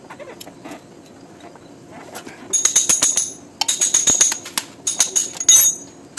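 Hand ratchet clicking in three quick bursts of metallic clicks, starting about two and a half seconds in, as the nut on the strut rod bolt is backed off.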